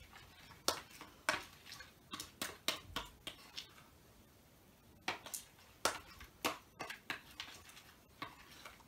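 Spoon stirring thick slime, a glue and contact lens solution mix, in a plastic bowl: irregular clicks and scrapes of the spoon against the bowl in quick clusters, with a short lull before the middle.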